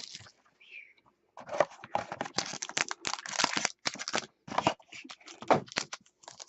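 Trading-card packaging being torn open and crinkled, with cards handled: an irregular run of rustles and tears that starts after a near-quiet second.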